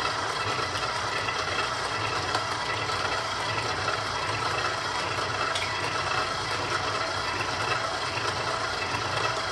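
KitchenAid bowl-lift stand mixer running steadily, turned up a little, its motor humming evenly as it beats batter in a stainless steel bowl.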